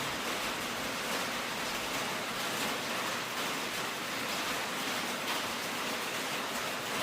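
Rain on the roof of an uninsulated metal building, a steady hiss that sounds like a storm and a half, though it is probably only drizzling.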